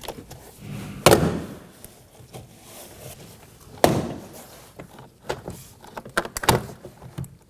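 Plastic retaining clips of a Toyota Corolla rear door trim panel popping loose as the panel is pulled off the door: three sharp pops about a second, four seconds and six and a half seconds in, with smaller clicks between the last two.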